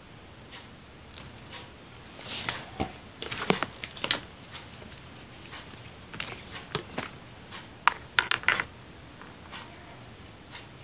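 A crochet hook working polyester yarn close to the microphone while a single crochet stitch is made: scattered soft scratches and clicks, busiest about two to four seconds in and again around eight seconds in.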